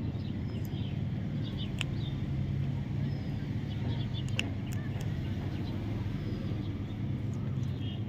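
Scattered short, faint parrot chirps over a steady low rumble, with a few sharp clicks.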